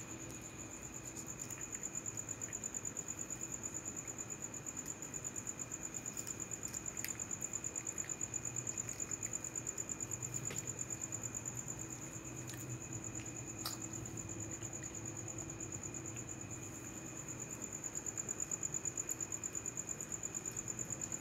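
Crickets chirping: a steady high-pitched trill with a fast, even pulse, with a few faint clicks over it.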